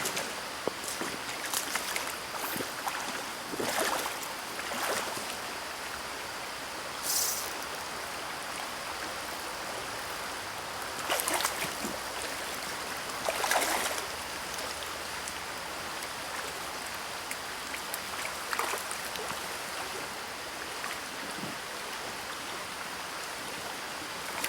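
Flowing stream water, a steady rushing, with a few short louder noises, the loudest about eleven and thirteen seconds in.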